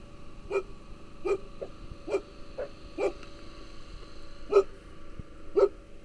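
Labrador retriever giving short whining yelps, about eight in a row at uneven spacing, the two loudest near the end.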